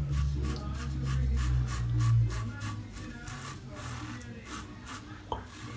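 Safety razor scraping stubble from a lathered face in quick short strokes, several a second. The blade has already done many shaves.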